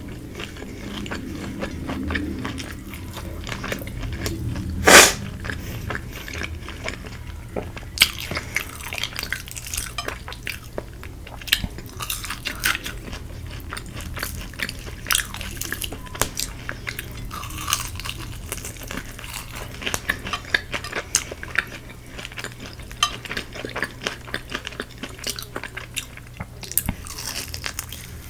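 Close-up crunching and chewing of crispy Korean fried chicken: many sharp crackling bites and wet chewing. There is one loud sharp crack about five seconds in.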